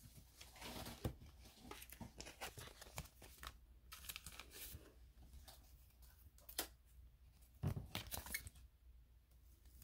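Faint rustling and light clicks of a trading card and thin plastic being handled, as a pulled card is slipped into a sleeve. The handling is slightly louder about eight seconds in.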